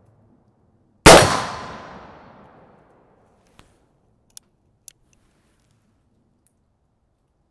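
A single shot from a reproduction 1858 Remington New Model Army black powder percussion revolver about a second in, ringing out and fading over more than a second, followed by a few faint clicks.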